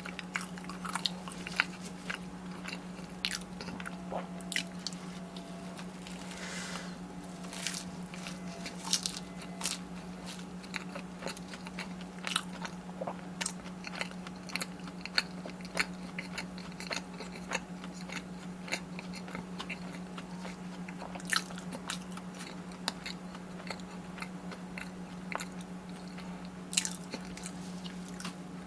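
Close-miked biting and chewing of crunchy batter-fried Korean corn-dog-shop food, with many sharp, irregular crunches. A steady low hum runs underneath.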